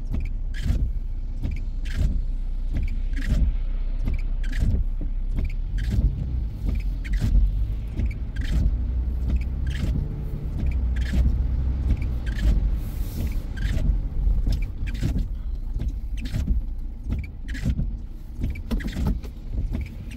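Inside a car driving slowly on a wet, flooded road: a steady low rumble of engine and tyres on wet pavement, with rain hitting the windshield and roof in sharp, irregular ticks.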